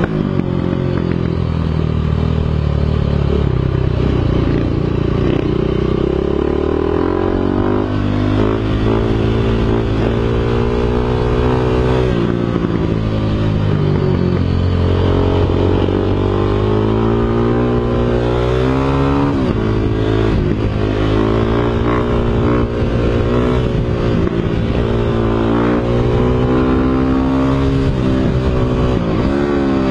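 Dirt bike engine running under load while ridden, its revs climbing and dropping over and over.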